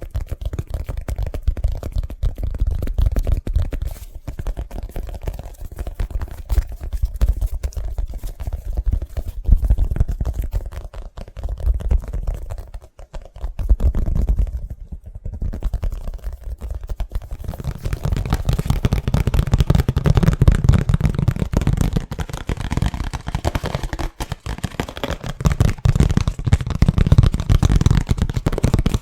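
Fast, aggressive tapping on an object, dense rapid taps with hardly a gap. There are two brief pauses near the middle, and the tapping gets fuller and brighter about two-thirds of the way through.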